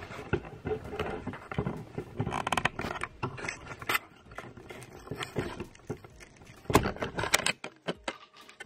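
Off-camera knocking, scraping and rustling from someone moving about and handling things, with two louder knocks about seven seconds in.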